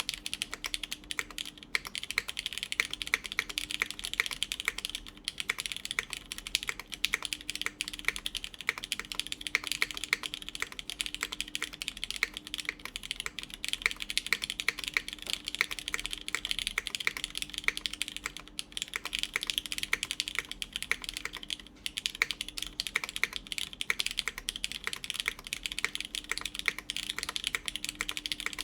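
Steady, rapid typing on a Beetle 60 mechanical keyboard with lubed Cherry MX Black linear switches, GMK keycaps, an aluminium half plate and a gasket mount: a dense, unbroken run of keystroke clacks.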